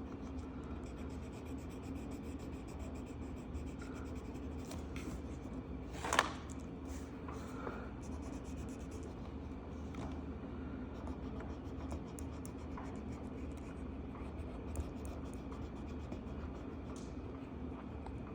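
Marker tip scratching and rubbing across a coloring-book page in short strokes, over a steady low hum. One sharper click about six seconds in.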